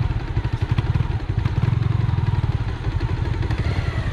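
Motorcycle engine running at low revs while the bike is ridden slowly off-road, its exhaust note pulsing steadily and swelling slightly about one and a half seconds in.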